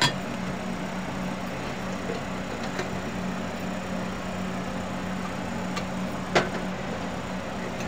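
Chopped onion and ground spice frying in oil in a steel kadhai: a steady sizzle over a low steady hum, with one sharp knock about six seconds in.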